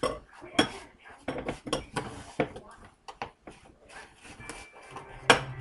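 Metal utensil clinking and knocking against a dish, a quick irregular string of sharp clicks with one louder knock about five seconds in.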